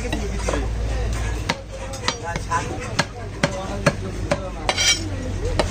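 Large butcher's knife chopping beef on a wooden stump block: a string of sharp, irregular knocks, roughly one to two a second.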